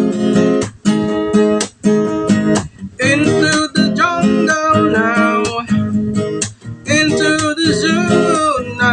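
Music: a song intro of strummed acoustic guitar chords, with a wavering, pitch-bending melody line coming in over the chords about three seconds in.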